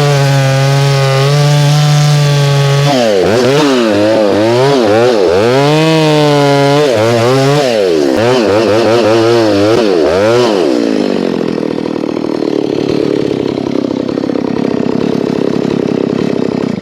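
Stihl MS290 two-stroke chainsaw running at full throttle, its revs dropping and recovering again and again as it cuts through wood, after its oil leak was fixed and its chisel chain sharpened. About ten seconds in it settles to a lower, rougher note, then stops abruptly at the very end.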